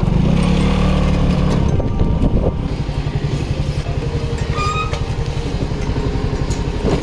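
Honda Dylan 125 scooter's single-cylinder four-stroke engine running, a little higher and louder for the first two seconds as it rolls up, then settling to a steady idle. A brief high-pitched tone sounds about four and a half seconds in.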